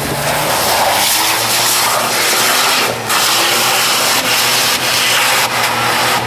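Jeep Wrangler engine running hard under load, its pitch rising in short revs beneath a loud, steady rushing noise, with a brief drop about halfway through.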